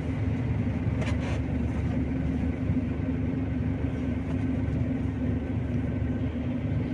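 Steady low drone of a moving road vehicle, with a brief clatter about a second in.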